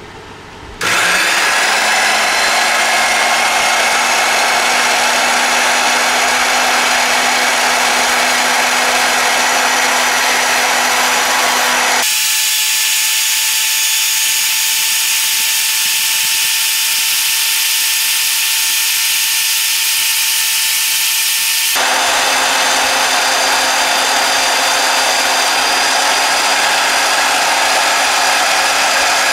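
Vertical band saw switching on about a second in and running steadily. For about ten seconds in the middle the sound turns higher and hissier as the blade cuts through the iGaging DRO's metal scale, then it goes back to running free.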